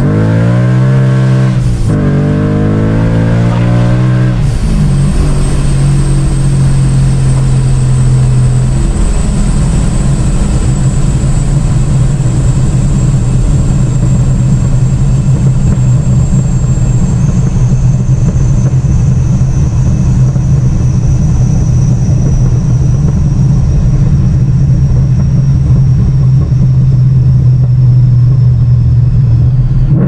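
A car engine revs up and drops back twice; the second drop falls off sharply about four and a half seconds in. The engine then holds a steady note, with a faint high whine slowly falling in pitch.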